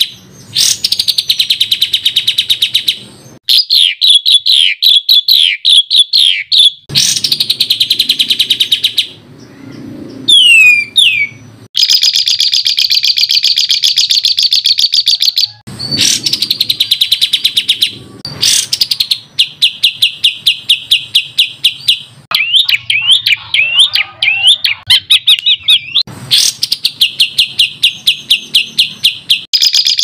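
Songbird tutor recording of rapid-fire rattling trills ('tembakan'), many notes a second, in loud clips that start and stop abruptly. These alternate with varied twittering phrases and, near the middle, a few quick downward whistles.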